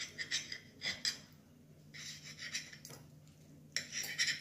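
A metal fork scraping and clicking on a ceramic plate while cutting through an egg roll, in short bursts: near the start, about a second in, around two seconds, and again near the end. A faint steady low hum runs underneath.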